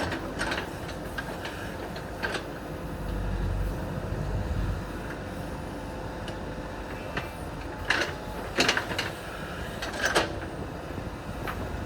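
JCB 3DX backhoe loader's diesel engine running steadily under load as it digs, rising a little about three seconds in, with several sharp clanks and knocks of the bucket and rock, the loudest about eight and ten seconds in.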